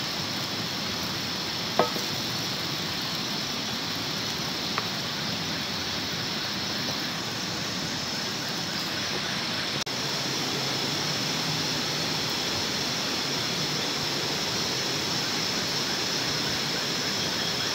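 Food sizzling in oil in a wok over a wood fire, a steady hiss with a few faint pops.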